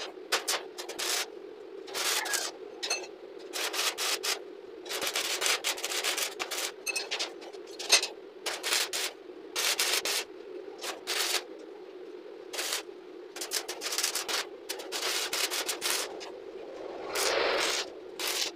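Stick arc welding on a steel window grill: the arc crackles in short bursts, from a fraction of a second to about a second and a half each, one after another as short welds are laid at the frame joints. A steady hum runs underneath.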